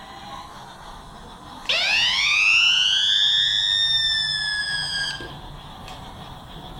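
Toy steam locomotive's electronic whistle sound effect: one long tone that sweeps sharply up in pitch and then holds. It starts suddenly about a second and a half in and cuts off after about three and a half seconds.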